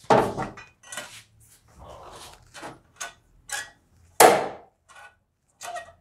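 Steel rebar handle on a spark-plug socket clanking as the engine's spark plug is turned tight, knocking against the socket and the raised bonnet. A string of irregular sharp metal clanks, the loudest about four seconds in.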